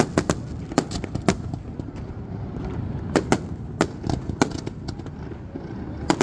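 Aerial firework shells bursting in a dozen or so sharp bangs at irregular intervals, with a gap of nearly two seconds in the middle, over a steady low rumble.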